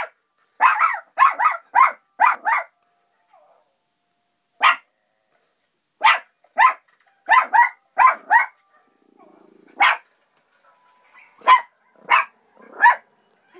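West Highland White Terrier barking at a dog on a laptop screen, in quick runs of sharp barks with short pauses between them.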